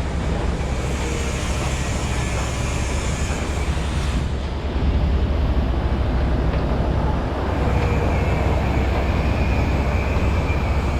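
An engine running steadily with a low, even rumble and no change in speed.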